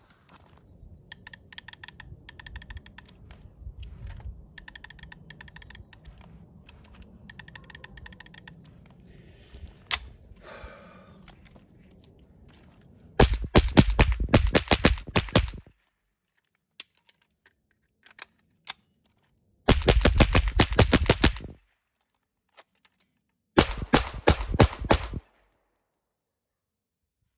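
Three fast strings of gunshots: a string of about two and a half seconds about halfway in, then two shorter strings near the end. Before the shooting there are only lighter clicks and rattles of handling.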